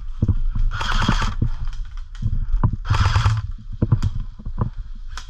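An airsoft player's footsteps and kit knocking while moving through woodland, with two short rushes of noise about two seconds apart.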